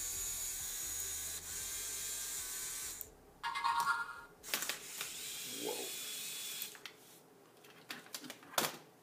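Small LEGO Technic electric motors and the gears of a differential CVT whirring steadily, stopping about three seconds in. A brief higher whirr follows, then a few plastic clicks as the parts are handled.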